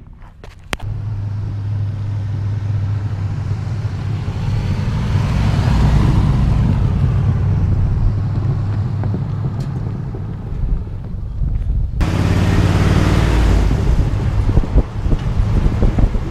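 A 1966 Ford F250's 390 V8 running steadily as the pickup drives down a road, with tyre and road noise. The sound swells and eases around the middle. About twelve seconds in it switches to a closer, windier sound of the engine with wind buffeting the microphone.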